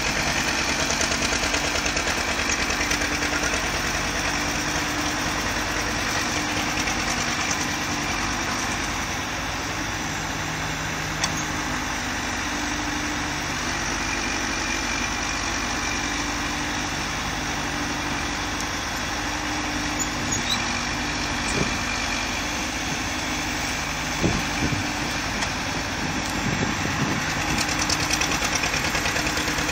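John Deere 310D backhoe loader's diesel engine running steadily at a low, idle-like speed, with a few brief sharp clicks over it.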